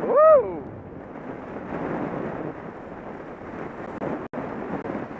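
Wind buffeting a helmet-mounted camera's microphone and skis sliding over packed snow during a downhill run. Just after the start comes a short tone that rises and then falls, and the sound cuts out for an instant about four seconds in.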